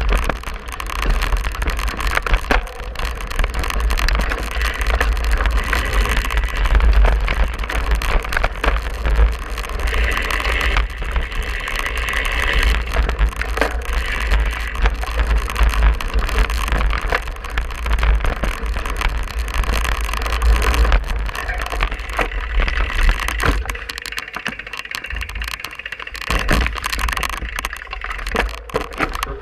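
Cyclocross bike ridden hard over rough dirt and grass: steady wind buffeting on the handlebar-mounted microphone, with tyre noise and a constant clicking rattle from the bike and mount over the bumps. The wind rumble briefly drops out near the end as the bike slows.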